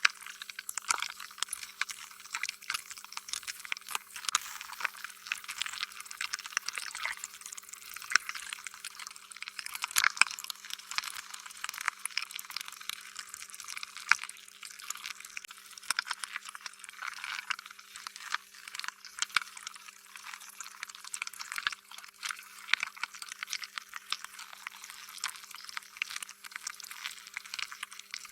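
Slime being squished and worked: a continuous stream of wet, sticky clicks and crackles, thin and high with no bass.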